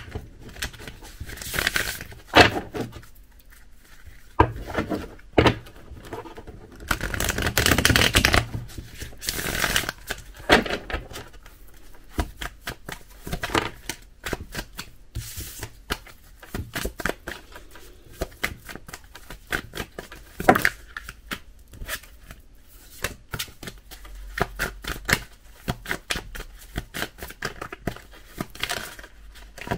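Tarot cards being shuffled by hand: bursts of riffling near the start and again several seconds in, then a long run of quick card-on-card flicks and taps. A few cards fall out onto the wooden desk.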